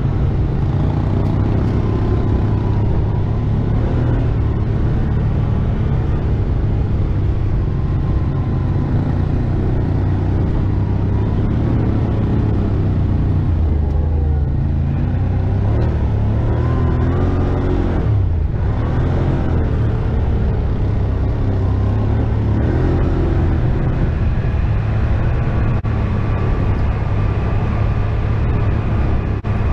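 ATV engine running steadily while riding a trail, with the revs rising and falling a few times around the middle.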